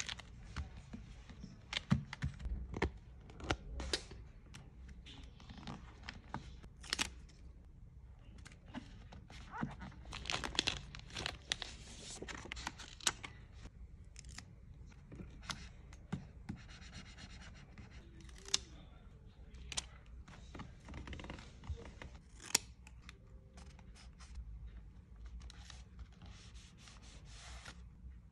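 Paper journal crafting: stickers peeled from their backing with metal tweezers and pressed onto a paper page, giving irregular light taps, scratches and paper rustling.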